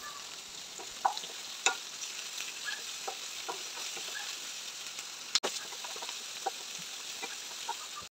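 Sliced onions and shallots sizzling in hot oil in a nonstick pan while a wooden spatula stirs them, with light scrapes and taps of the spatula against the pan. A sharper click comes about five seconds in.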